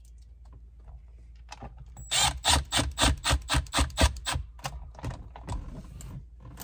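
Screwdriver ratchet clicking in quick strokes, about five clicks a second for a couple of seconds, then a few scattered clicks, as small screws are snugged into a plastic console lid.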